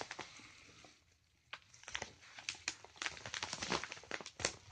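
Paper padded mailer crinkling and rustling as hands open it and handle its contents, a soft rustle at first and then, from about a second and a half in, a quick run of sharp crackles.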